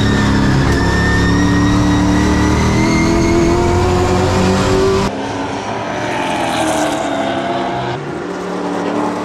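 Race truck engines running at speed, the pitch dipping and then climbing. About five seconds in the sound cuts sharply to quieter engine noise.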